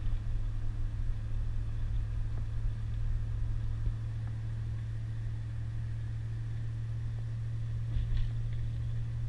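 Car driving along a highway, heard from inside the cabin: a steady low drone of engine and road noise.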